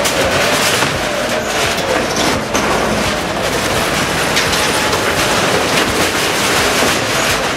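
Wheel loader pushing over a shack: a diesel engine under load with corrugated metal roofing sheets and timbers scraping, rattling and crashing as the structure gives way, a dense clatter.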